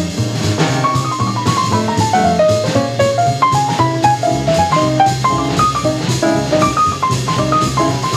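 Early-1950s bebop jazz quintet of alto saxophone, trumpet, piano, double bass and drums, mid-tune. A solo of fast running lines of short notes rises and falls over walking bass and swinging drums.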